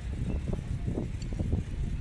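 Intermodal freight train rolling past: a steady low rumble with irregular knocks and clacks from wheels on the rails.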